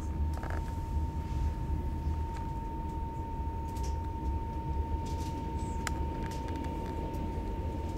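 Passenger train interior as the train moves slowly: a steady low rumble with a thin steady hum above it and a few light clicks and knocks.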